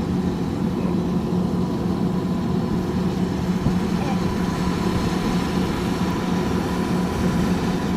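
Harvester engine running steadily with an even, unchanging hum.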